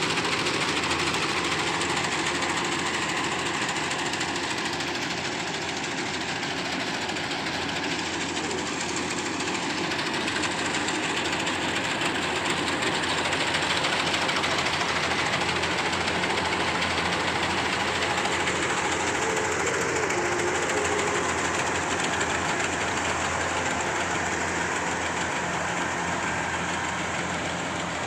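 Kubota rice combine harvester running steadily under load: engine and threshing machinery making a dense, continuous mechanical din.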